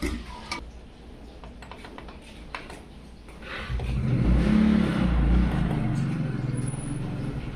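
A few light clicks, then about four seconds in the low rumble of a motor vehicle engine starts up loud and keeps running.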